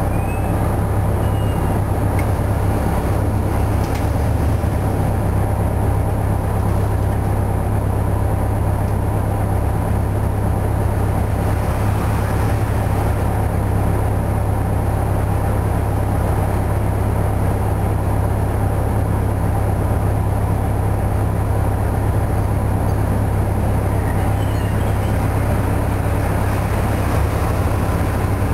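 1972 Flxible New Look bus's Detroit Diesel 8V71 two-stroke V8 idling steadily, with the bus at a standstill, heard from inside the bus.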